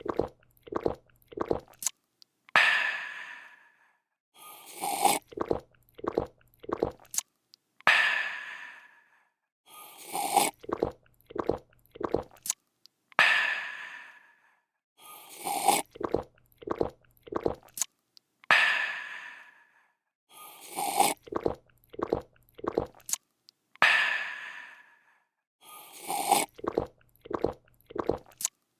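A person slurping a drink, swallowing in several quick gulps, then letting out a long refreshed "aah" that fades away. The same slurp-gulp-aah sequence repeats about every five seconds.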